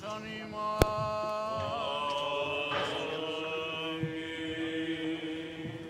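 Greek Orthodox Byzantine chanting: voices hold long, drawn-out notes that waver now and then, with a lower note held beneath them in the second half. A single sharp click comes a little under a second in.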